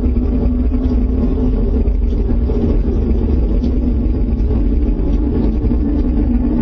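Loud, steady deep rumble with no breaks, which the people hearing it fear is an approaching tornado.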